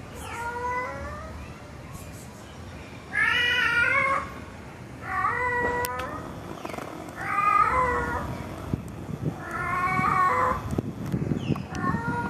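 A tomcat meowing loudly and repeatedly, about six drawn-out calls roughly two seconds apart: a male cat calling for a female.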